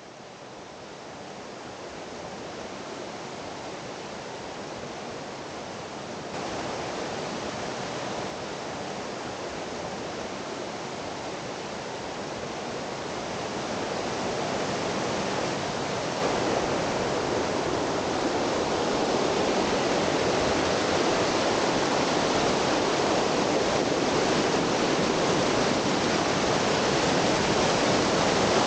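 Mountain creek rushing over rock cascades: a steady roar of white water that grows louder, stepping up about six seconds in and again around sixteen seconds.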